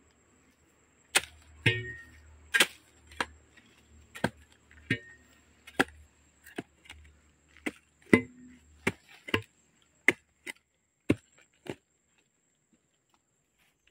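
A long-handled metal digging tool chopping into soil and tree roots: a steady series of about seventeen sharp strikes, roughly one every two-thirds of a second, some with a short metallic ring. It starts about a second in and stops a couple of seconds before the end.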